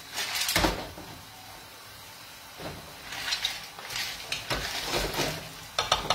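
Frying pan of gnocchi with clams in their shells being stirred and shifted on a gas stove grate: a heavy knock about half a second in, then scattered clatters and scrapes, with a quick cluster of sharp clicks near the end.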